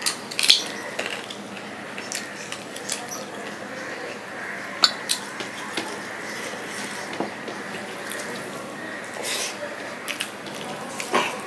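Eating by hand from a stainless steel plate: fingers mixing rice and curry on the metal and mouth sounds of chewing, heard as scattered wet clicks and taps, the sharpest about half a second in and near the middle.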